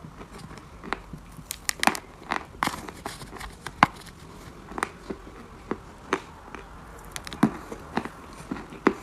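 Mali chalk being bitten and chewed close to the microphone: a string of sharp, irregular crunches, about one or two a second.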